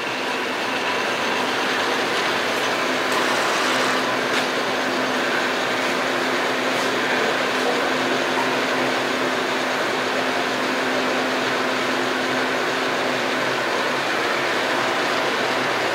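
Hardinge HLV-BK toolroom lathe running under power and cutting a thread, with a steady whir of the spindle and gearing and a faint steady hum.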